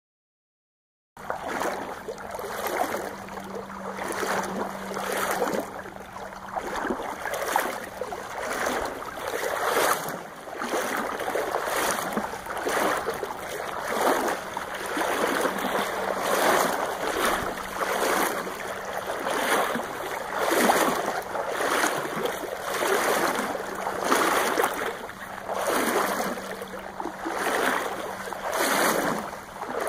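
Water splashing and lapping against a small boat in regular swells about once a second, beginning about a second in, with a faint steady hum underneath.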